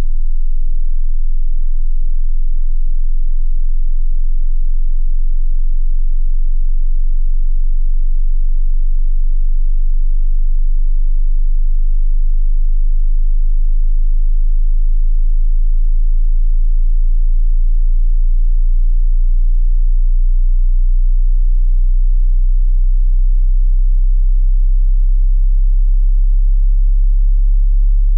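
A pure sine test tone at a very low pitch, well under 100 Hz, creeping slowly upward. This is the bottom end of a frequency-sweep hearing test.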